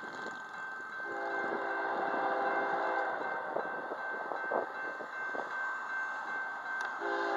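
Diesel locomotive air horn, from the lead GE ES44C4 of an approaching freight train, sounding a steady multi-note chord: one long blast starting about a second in and lasting about two seconds, then another beginning near the end. It is the horn warning for the road grade crossing.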